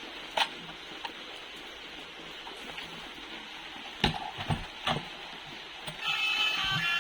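A few sharp clicks and knocks of hard plastic toy vehicles being handled, over a steady hiss; guitar music comes in near the end.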